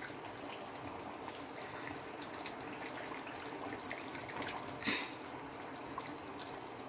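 Tomato stew simmering in a pan on a gas stove, with a steady bubbling hiss. A single brief knock comes about five seconds in.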